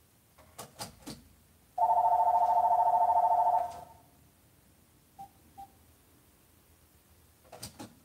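Landline telephone ringing once: an electronic, rapidly trilling ring of about two seconds, the loudest sound here, with a few light clicks before it and again near the end.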